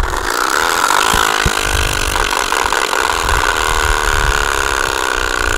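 Bicycle rear wheel turning with a homemade exhaust made from an energy-drink container: the spokes flapping against the fitted piece give a loud, steady, motorbike-like buzz that rises a little in pitch as the wheel gathers speed.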